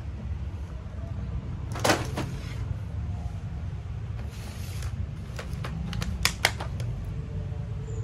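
Plastic blister packs of toys on cardboard backing being handled and set down on a tile floor: a sharp clack about two seconds in, a crinkly plastic rustle around the middle, and a quick run of clicks near the end, over a steady low hum.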